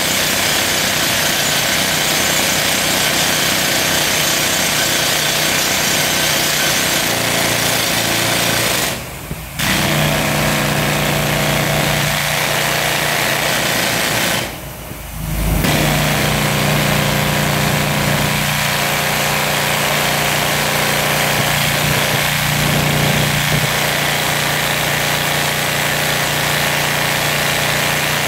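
Toku TS-55 rock drill hammering into rock, a loud rapid steady rattle with hissing air, stopping briefly twice, about nine and fifteen seconds in, as the drill is lifted. A steady engine tone from the Morath AK12 powering the drill runs underneath.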